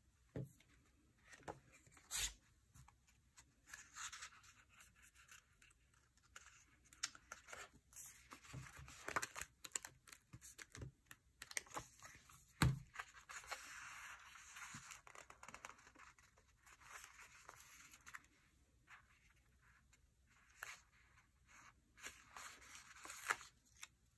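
Faint paper handling: stickers peeled off their backing sheet and paper rustling, with scattered light taps and clicks. The longest peeling stretch comes about halfway through, opening with the sharpest tap.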